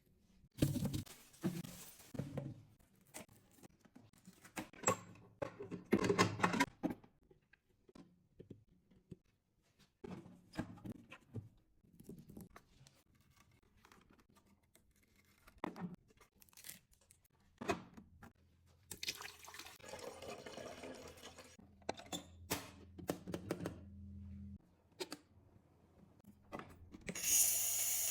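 Packaging rustling and tearing with scattered clicks and knocks. Then an espresso machine's pump hums steadily with water running for about five seconds and cuts off, and near the end a loud steam hiss starts.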